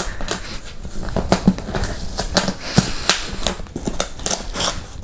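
Corrugated cardboard shipping box being torn and pried open by hand along its edge: a string of irregular crackles and rips.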